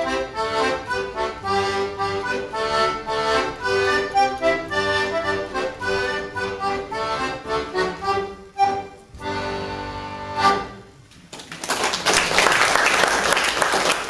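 Button melodeon playing a traditional tune, a quick run of reedy notes and chords that ends on a held chord about ten seconds in. An audience then starts applauding.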